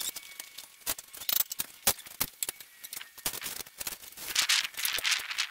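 Irregular clatter of knocks and clicks as tools and pieces of wood are shifted about on a workbench, with a rustling scrape near the end.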